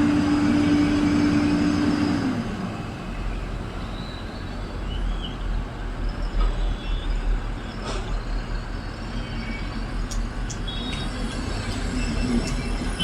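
Heavy construction machine's diesel engine running. A steady whine drops away about two seconds in, leaving a low, pulsing engine rumble with a few light clanks.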